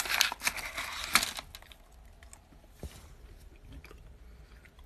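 Plastic sweet packet crinkling and rustling as it is handled, stopping about a second and a half in; after that only a few faint clicks and a single soft thump.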